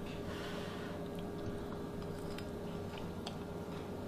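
A person faintly chewing a spoonful of soft broccoli cheese casserole, with a few small mouth clicks, over a steady faint hum.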